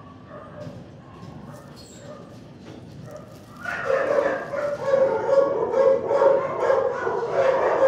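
Dog barking excitedly: quiet for the first few seconds, then from about four seconds in a loud, rapid run of barks and yips.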